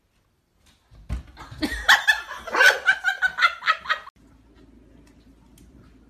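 A person laughing hard in quick rhythmic bursts, starting about a second in and lasting some three seconds before cutting off suddenly; a faint low hum follows.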